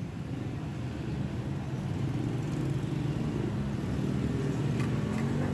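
Road traffic: a motor vehicle's engine running close by with a steady low hum, its pitch rising a little near the end, with a few light clicks.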